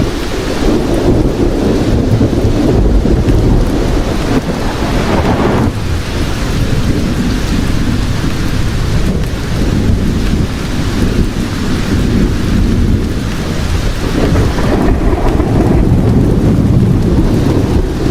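Thunderstorm: steady heavy rain with long rolling thunder rumbling under it, swelling and easing in waves.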